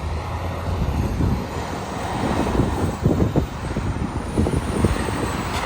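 A semi truck's diesel engine running at an intersection amid steady road traffic noise.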